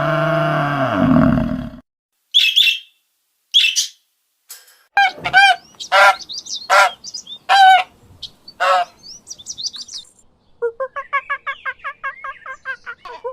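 A series of bird-like animal calls: a few short chirps, then louder pitched calls at intervals, then a quick rapid run of short repeated calls near the end.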